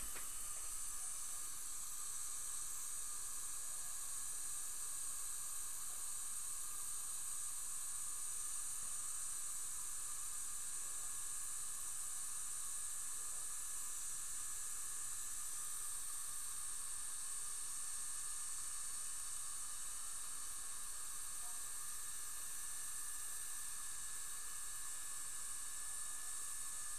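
Steady hiss of dental equipment running, with a few faint steady whistling tones above it.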